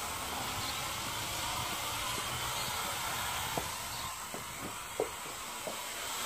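A toy-grade quadcopter's small electric motors and propellers running steadily as it flies, heard as an even hissing whir. A few light taps come in the second half.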